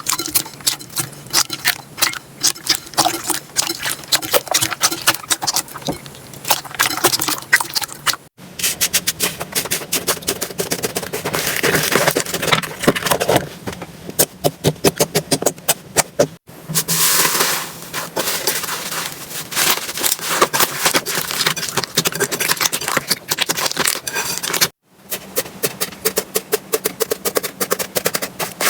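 Slime being squeezed, stretched and poked by hand, making rapid sticky clicks, pops and crackles. Three short silent breaks split it into separate clips.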